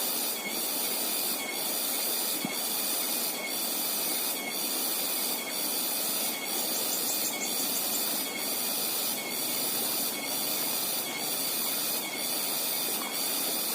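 Steady rushing of river water, with a high, shrill hiss over it that pulses about once a second.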